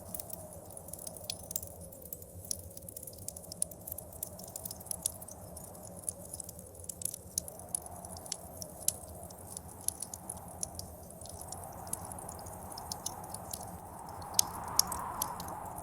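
Wood fire crackling with many irregular sharp pops, over a steady whistling blizzard wind that swells louder near the end.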